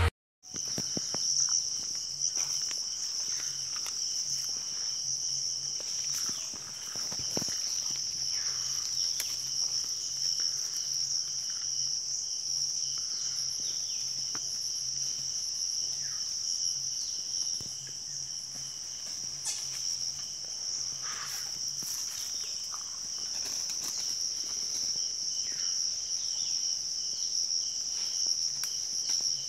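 A steady, high-pitched insect chorus, with a few brief knocks scattered through it.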